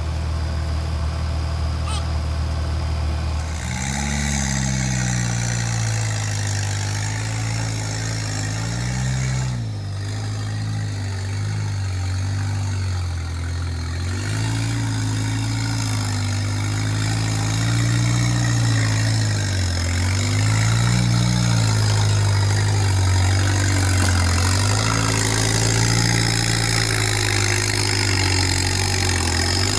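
Rock-crawling truck's engine working at low speed over rocks, its pitch rising and falling again and again as the throttle is worked. Before that, for the first few seconds, a steady low hum.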